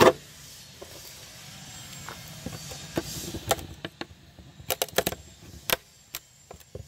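A chisel cutting into the wooden frame at a corner of the tail-light opening to square it out. It gives a loud crack at the start, then scattered sharp clicks and cracks of wood splitting, bunched about five seconds in.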